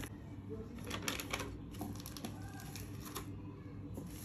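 Light, scattered clicks and taps of kitchen utensils being handled, over a low steady hum.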